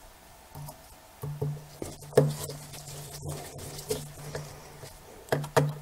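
Light clicks and small metallic taps of a small screwdriver driving the screws of a lens's metal Canon EOS bayonet mount, the sharpest click about two seconds in.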